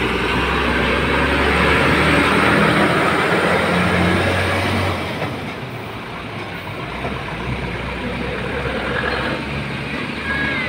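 Heavy vehicle passing close on a busy highway, its engine and tyre noise swelling over the first few seconds and then easing about halfway through into steady road-traffic noise.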